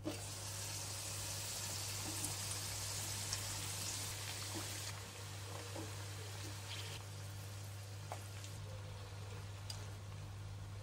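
Potato cubes frying in a pan of hot oil, sizzling and bubbling once the glass lid is lifted off with a brief clink. The sizzle is loudest for the first five seconds or so, then settles to a softer hiss.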